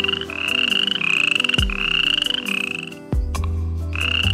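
An animal making a run of short buzzy calls, each rising slightly in pitch, about two a second. There is a pause of about a second, then one more call near the end. A low hum underneath cuts out and back in twice.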